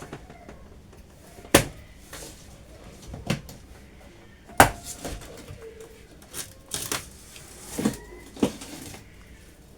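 Cardboard box and packaging being handled and opened during a microwave unboxing: scattered sharp knocks and clicks with rustling between. The loudest knocks come about a second and a half and four and a half seconds in.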